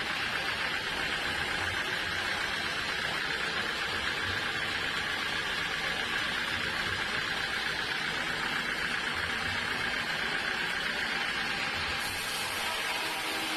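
Sawmill machinery running steadily, an even mechanical drone with no breaks.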